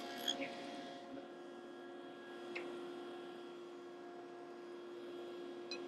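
Faint steady hum, with a few light taps as a plywood test piece is handled on a table saw's cast-iron top.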